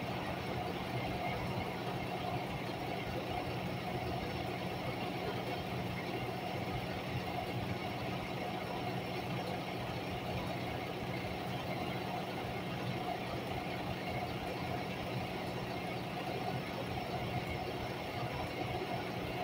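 Semi truck's diesel engine idling steadily, with no revving.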